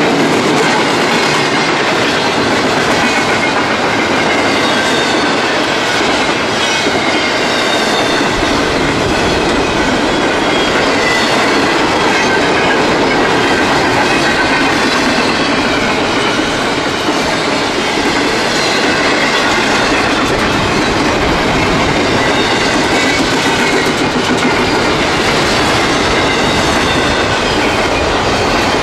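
CSX intermodal freight train rolling steadily past at close range: railcar wheels clicking over the rail joints, with some steel wheel squeal. The low rumble grows stronger about eight seconds in.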